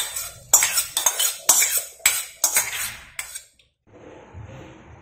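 Metal kitchen utensils clinking: about seven sharp, ringing strikes roughly half a second apart, stopping about three and a half seconds in, followed by faint room noise.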